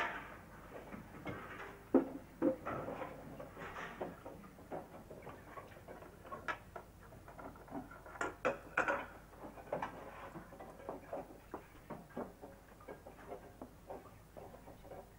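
Irregular clinks and knocks of crockery and kitchenware being handled, with a sharper knock about two seconds in.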